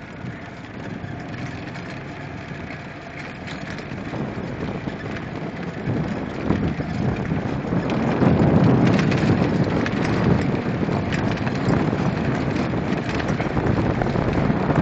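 Golf cart driving across grass, heard under wind noise on the microphone. The rumble grows louder about halfway through.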